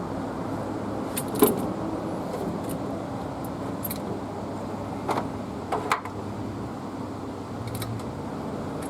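Metal tools clinking and clanking: a few sharp metallic knocks, the loudest about a second and a half in, as the crank pulley puller and the pulled pulley are handled, over a steady low hum.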